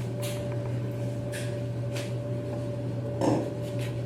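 A few light clinks and knocks of dishes being handled, over a steady low electrical hum.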